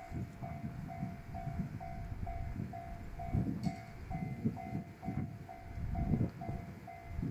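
Japanese railway level crossing's electronic warning bell ringing steadily, about two strikes a second, over the uneven low rumble of a passing diesel railcar.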